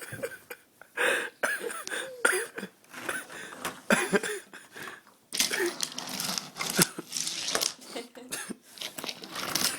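A toddler blowing raspberries against his mother's bare skin: wet, fart-like buzzing in repeated bursts, the longest starting about halfway through, with short vocal sounds in between.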